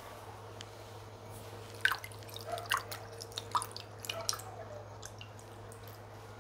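Close-up wet eating sounds of fufu with chicken pepper soup: a handful of short, sticky clicks and squishes spread over a few seconds.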